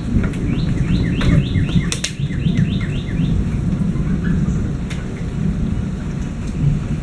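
Steady, loud rain with a low rumble of thunder. Over it, in the first three seconds, a bird calls a quick run of about a dozen short descending notes, three or four a second. A sharp tick comes about two seconds in.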